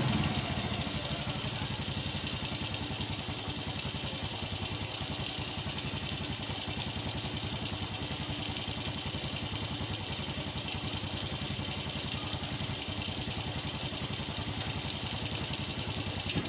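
Suzuki Raider J 110's single-cylinder four-stroke engine idling steadily, freshly refitted with its original Mikuni carburetor.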